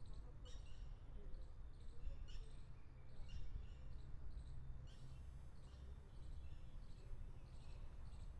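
Birds chirping in short, repeated high calls, about one or two a second, over a steady low rumble.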